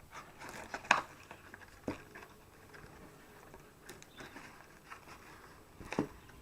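Small objects being handled and unpacked from a box: a few light clicks and knocks spaced a second or two apart, with faint rustling between them.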